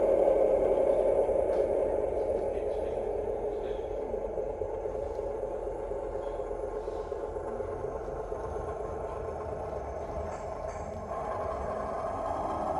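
Diesel railcar engine sound from a Zimo sound decoder playing through a sound-fitted O gauge Class 128 model's speaker as the model runs along the track. It is loudest at first, eases off over the first few seconds and then runs on steadily, with a few faint ticks.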